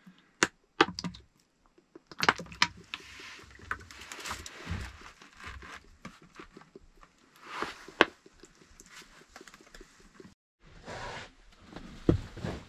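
Handling noises from a plastic oil bottle and a fabric-wrapped torch head in a plastic bucket as sunflower oil is poured over it: scattered sharp clicks and knocks with rustling. Near the end come a few thumps as the bucket is moved on the wooden floor.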